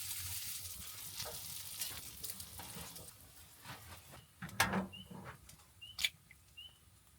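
Food sizzling in a frying pan, the hiss fading over the first few seconds, with a few sharp clinks of a utensil against the pan around the middle and a few short high chirps near the end.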